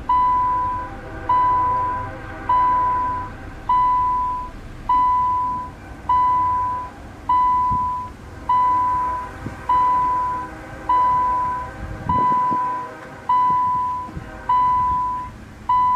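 Electronic beeper sounding one steady high tone over and over, a long beep about every second and a bit, loud and evenly spaced, with low street-like background noise beneath.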